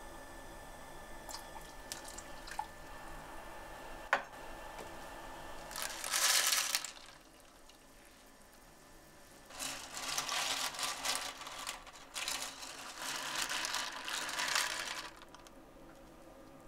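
A pot of water at the boil, with a brief splash as water is poured in about six seconds in. From about ten to fifteen seconds comes a longer spell of wet clattering as cockles in their shells are tipped in and stirred.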